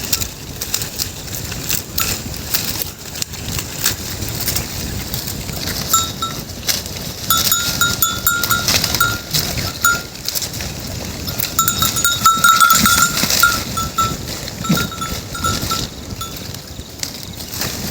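Small bells worn by grazing goats, clinking irregularly in short clusters as the goats move, over a steady rough background noise.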